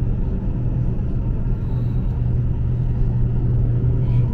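A passenger train in motion, heard from on board: a steady low rumble with a constant hum.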